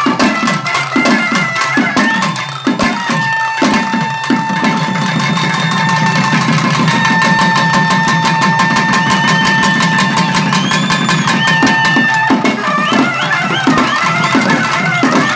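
Naiyandi melam folk music: thavil barrel drums beating fast under a long held pipe note, the drumming thickening into a dense roll partway through. Near the end the held note breaks off and a wavering melody takes over.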